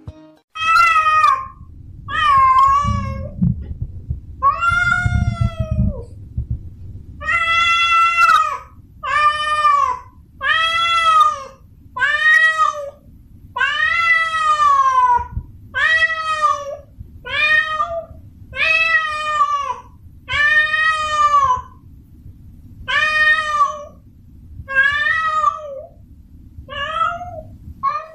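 Tomcat in heat yowling a mating call to a female: about sixteen drawn-out meows, one every second or so, each rising and then falling in pitch. A low steady rumble runs underneath.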